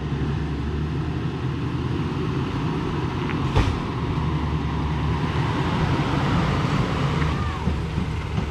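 GMC heavy-duty pickup truck's engine running steadily as it pulls a loaded boat trailer up a boat ramp, with a single sharp knock a few seconds in.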